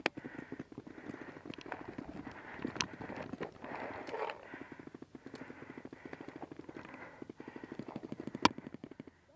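Rhythmic rustling and knocking of a paintball player's gear and steps as he moves low along a dirt trench, with soft swells of noise repeating under a second apart. A single sharp crack rings out about eight and a half seconds in.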